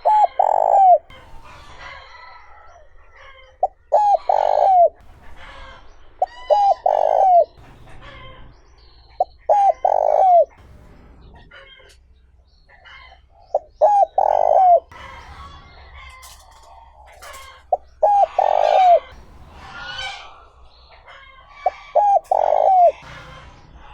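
Male spotted dove cooing its territorial call, in the clean 'trơn ròng' voice used as a decoy call to provoke wild doves. About seven phrases come every two to four seconds, each a couple of short notes and then a longer coo that drops in pitch.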